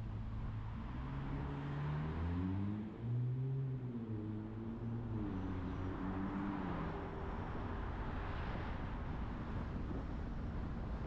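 A car engine climbs in pitch as it accelerates. It drops briefly about three seconds in, then dies away as the car slows, over steady road and wind noise.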